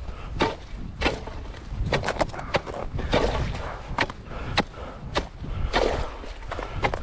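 Ice chisel chopping into ice and crusted snow at the hole beside a beaver-set pole: a run of sharp strikes, about one or two a second, some followed by a short crunch.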